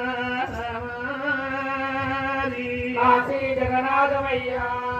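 Telugu Oggu Katha ballad chanting: voices singing in long held, wavering notes, with a low beat underneath.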